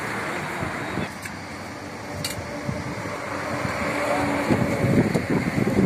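Steady outdoor background noise with indistinct voices, which grow louder near the end, and a couple of light clinks from steel serving vessels.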